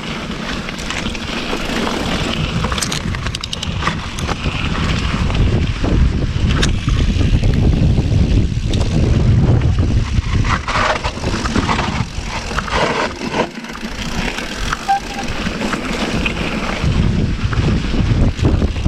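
Mountain bike rolling over a dirt trail, with the tyres rumbling and crunching, scattered rattles and clicks from the bike, and wind buffeting the GoPro microphone.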